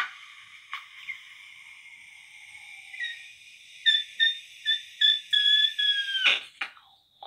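A small whistle blown at the mouth in one long shrill note. It swells in about five quick pulses and then sags in pitch before cutting off.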